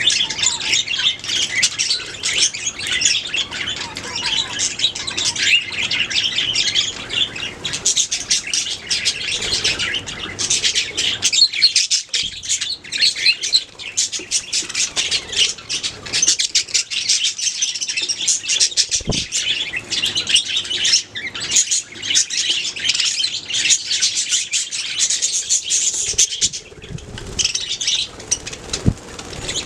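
Several budgerigars singing and chirping together in a constant rapid, high-pitched chatter.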